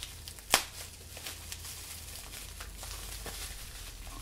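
Paper rustling and crinkling in faint, scattered handling sounds as a wrapped gift is unwrapped, with one sharp click about half a second in.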